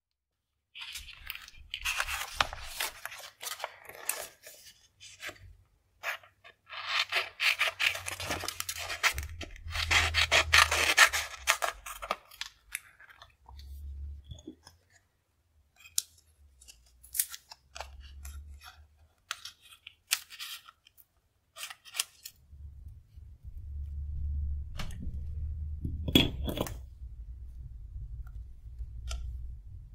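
Paper being cut with scissors: two long runs of crisp snipping and rasping paper, the second the louder. Then scattered light taps and soft rubbing as paper pieces and a sticker are handled.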